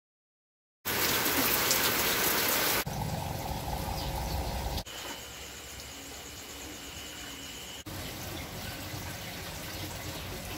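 Aquarium water bubbling from an air-driven sponge filter and air line, a steady trickling and bubbling. It starts abruptly about a second in and jumps in loudness at a few sudden cuts, loudest at first.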